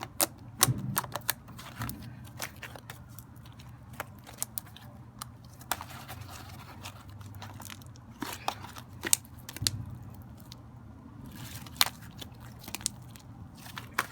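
Slime being worked by hand, giving irregular sharp clicks and pops, a few of them louder snaps.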